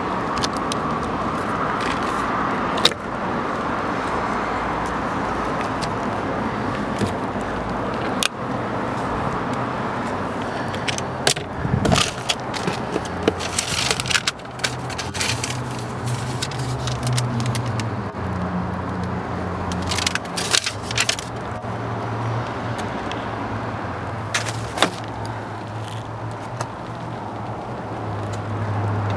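Handling noises inside an SUV's cabin: scattered clicks and knocks from the door and trim, and papers rustling about midway, over steady background noise. A low steady hum comes in during the second half.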